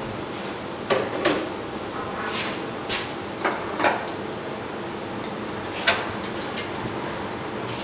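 A few light knocks and clinks of an electric kettle being put back and a plastic AeroPress and glass carafe being handled, with the sharpest click about six seconds in, over a steady background hum.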